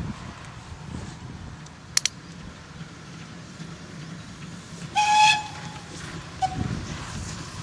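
Steam locomotive whistle blown once for about half a second, about five seconds in, with a short second toot a second later, over a steady low rumble of the approaching train.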